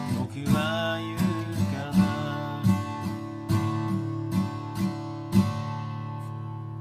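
Acoustic guitar strumming the song's closing chords, then a last chord left to ring out and fade from about five and a half seconds in.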